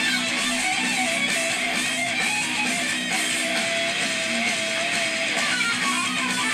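Background guitar music at a steady level, a wavering melody line over strummed chords.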